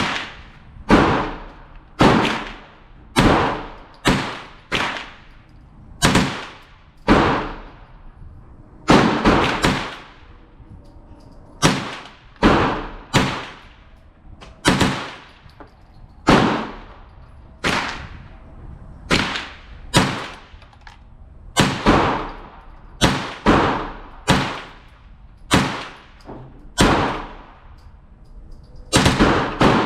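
A string of about thirty .22 LR shots from an AR-15 pistol with a CMMG .22 LR conversion kit, fired with a binary trigger: single shots and quick pairs at uneven spacing, each with a short ringing tail. The kit is cycling every round without a jam.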